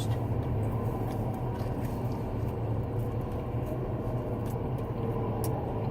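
Steady low background hum, with faint chewing and a few small mouth clicks as someone eats toast.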